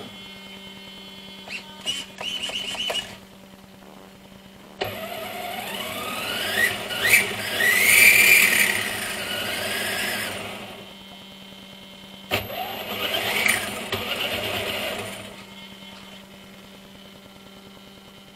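Electric motor and drivetrain of an RC short-course truck revving with its wheels spinning in the air. There is a short blip about two seconds in, then a longer run whose whine rises in pitch, and a third run a little past the middle.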